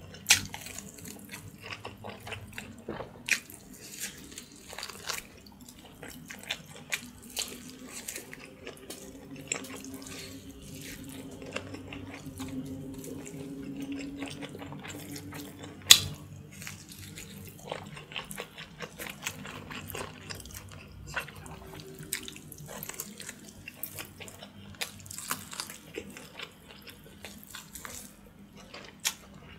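Close-miked eating sounds of a person gnawing and sucking meat off a pork backbone: wet sucking, smacking and chewing with scattered sharp clicks. One much louder click comes about halfway through.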